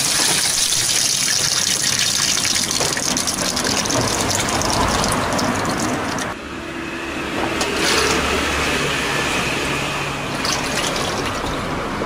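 Water gushing from the inlet into the drum of an LG top-loading washing machine as it fills. The stream is cut off about six seconds in when the water valve is closed, and a quieter steady hum with some noise continues after it.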